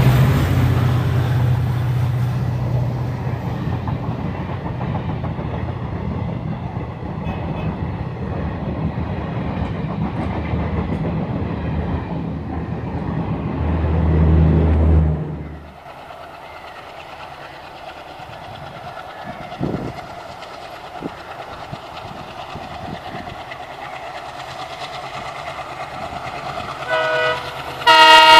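Passenger coaches of an express train rolling past with a steady rumble and clatter of wheels on rail joints, swelling briefly as the last coach goes by. About halfway through the sound gives way abruptly to a quieter low rumble. In the last second or so the loud multi-tone horn of an ALCo WDM3D diesel locomotive sounds.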